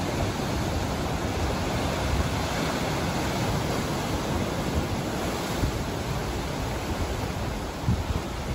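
Sea surf breaking and surging into a narrow rocky inlet between cliffs: a steady, continuous wash of churning waves.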